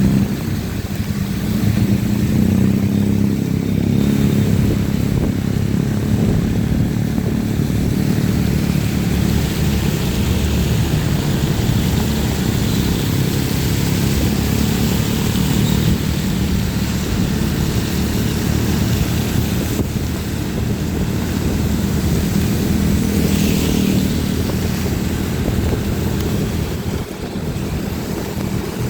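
Motorcycle engine running steadily while riding, with an even hiss of tyres on a wet road and rain. The engine sound eases off slightly near the end.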